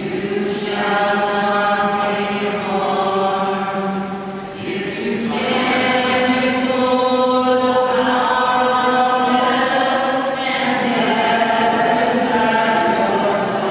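Congregation singing a hymn or sung chant of the Mass together, in slow, long-held notes that change pitch every few seconds.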